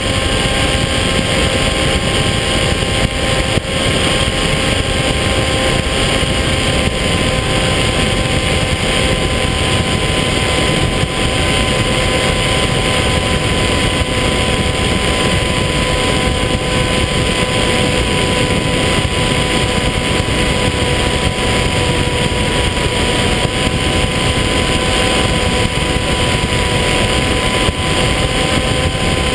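Electric motor and propeller of an FPV foam RC plane running steadily at speed, a constant whine heard from the onboard camera, over heavy wind rush on the microphone.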